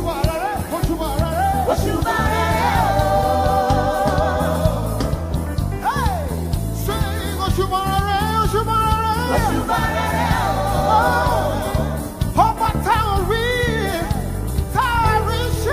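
Gospel praise music: singing over a band with a steady beat, the voices holding long wavering notes.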